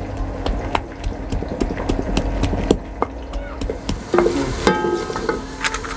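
Long wooden pestle pounding garlic cloves in a stone mortar, about four sharp knocks a second, to make garlic paste for cooking.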